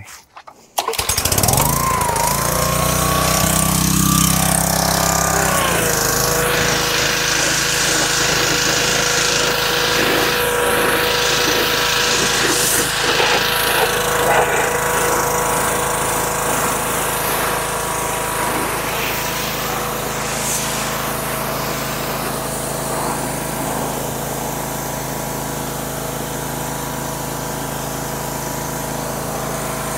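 A gas pressure washer's small engine starts about a second in and runs steadily. Its note shifts over the next few seconds, then settles into a steady whine from about six seconds in.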